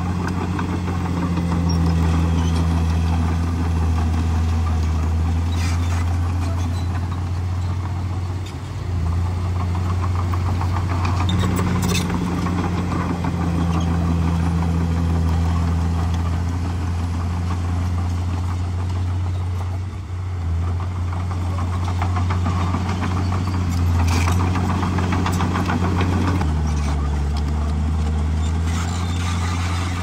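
Komatsu D51PX bulldozer's diesel engine running steadily as the machine works, its pitch dropping and rising a few times, with a few sharp metallic clanks.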